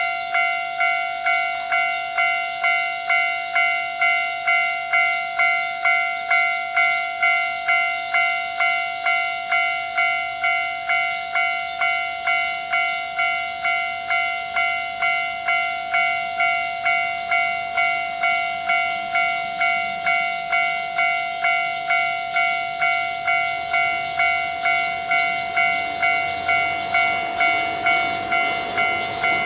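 Japanese railway level-crossing alarm ringing its normal electronic 'kan-kan' tone, an evenly repeated two-tone ding about twice a second, warning that a train is coming. Near the end the low rumble of the approaching Watarase Keikoku Railway WKT-520 diesel railcar grows beneath it.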